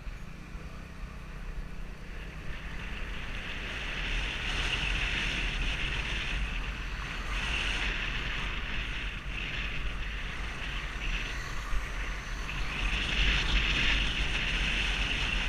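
Vespa 250 GTS scooter's single-cylinder four-stroke engine pulling away and running on the road. Wind rushes over the microphone and grows louder a few seconds in as the scooter gathers speed.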